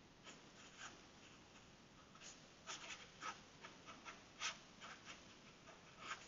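A felt-tip marker writing on paper: faint, short scratching strokes, sparse at first and coming thicker from about two seconds in.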